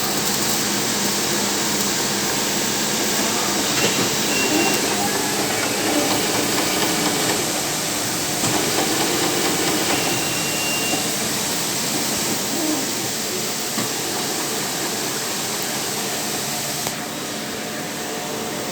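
Automatic CNC drilling machine running steadily, a dense hiss with a low hum, a short high whine sounding twice.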